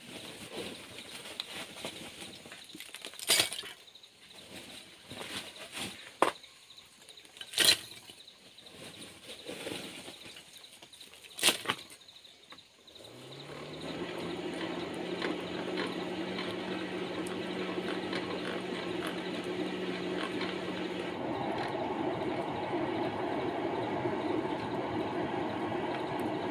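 A few sharp knocks, then about halfway through a hand-cranked forge blower spins up with a rising hum and runs steadily, rushing air into the charcoal fire to bring it up. About three-quarters in the hum drops out and the rush of air grows louder.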